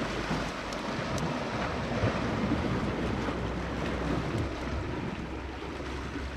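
Sea waves washing steadily against a rocky shore, with wind buffeting the microphone.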